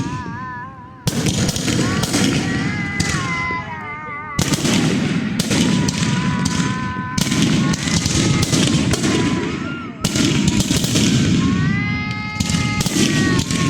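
Fireworks going off in a dense, continuous barrage of bangs and crackling, with high warbling whistles sounding over it at several points.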